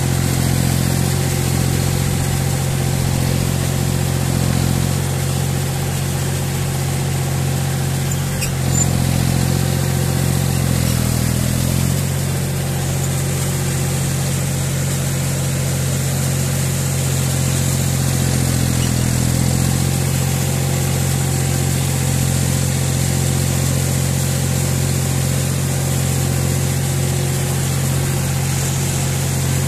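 John Deere 5045 tractor's three-cylinder diesel engine running steadily as the tractor works through wet paddy mud, its pitch dipping briefly about eleven seconds in. A short knock sounds just before that.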